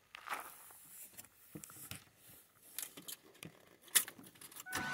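Car keys jangling with small clicks and rustles of someone getting into a car's driver's seat, and a sharp click about four seconds in. A steady tone starts just before the end.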